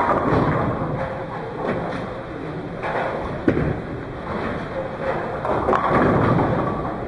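Bowling ball released onto the lane with a sharp thud about halfway through, then rolling down the lane and crashing into the pins near the end, over the steady clatter of a busy bowling alley.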